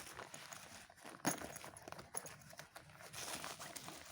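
Hands unpacking a boxed set of glass lunch containers: a few sharp knocks and clicks, the loudest a little over a second in, with some rustling of the packaging later.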